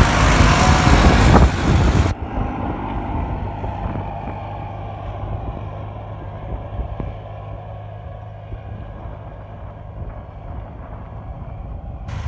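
Case IH JX-series tractor's diesel engine running under load as it pulls a seed drill, loud and close at first. About two seconds in it drops suddenly to a quieter, steady drone that slowly fades as the tractor moves away.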